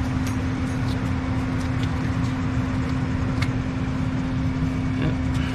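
Gas furnace's blower motor running with a steady hum and one constant pitched tone over a low rumble, with a few faint ticks.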